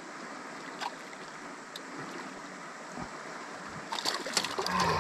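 Steady rushing of river water around a boat, with a few faint clicks and, near the end, a cluster of small knocks and clicks.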